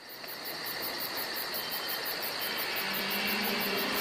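Insects chirping and trilling: a steady high trill with a fast, even pulsing chirp above it, over a constant hiss, fading in and growing louder.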